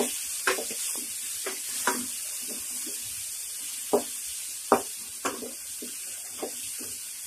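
Chopped vegetables sautéing in hot oil in a kadai, sizzling steadily while a spatula stirs them, scraping and knocking against the pan at irregular intervals; the sharpest knocks come about four and five seconds in.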